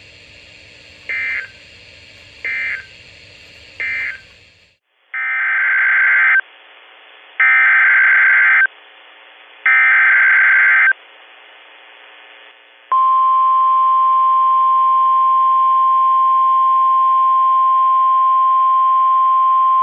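Emergency Alert System SAME data bursts on NOAA Weather Radio: three short end-of-message bursts close out the previous statement, then three longer, louder buzzy header bursts about a second apart announce the next alert. About 13 seconds in, the steady 1050 Hz weather-radio warning alarm tone starts and holds, signalling a tornado warning.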